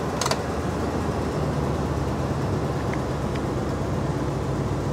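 Ford delivery truck's engine idling, heard from inside the cab, with the air-conditioning blower running as a steady hum. There are a couple of clicks as the climate-control knob is turned near the start. A low steady tone joins in a little over a second in, as the A/C system picks up.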